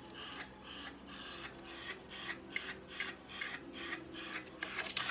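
Grooming tools working through a West Highland white terrier's leg fur: short, sharp strokes about three a second, over a faint steady hum.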